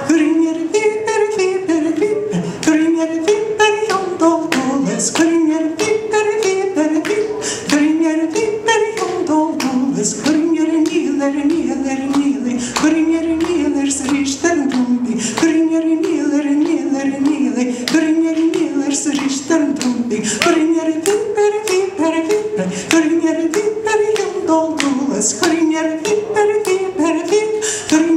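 A woman singing puirt a beul, Scottish Gaelic mouth music, unaccompanied: a quick, lilting tune carried by the voice alone, with frequent sharp clicks through it.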